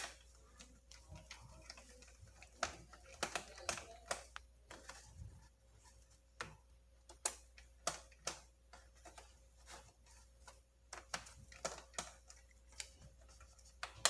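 Faint, irregular small clicks and taps of a precision screwdriver working the screws in a laptop's bottom case, as the screws are backed out one by one.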